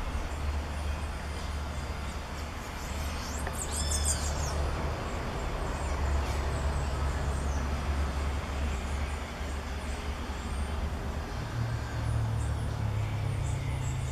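A great kiskadee gives one short call with an arched, rising-then-falling pitch about four seconds in, with a few faint high chirps elsewhere. A steady low rumble runs underneath and is louder than the call.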